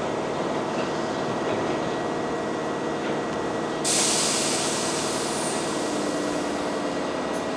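Keihan 9000-series electric train standing at the platform, its equipment giving a steady hum with fixed tones. About four seconds in, a sudden loud hiss of compressed air starts and fades away over a couple of seconds.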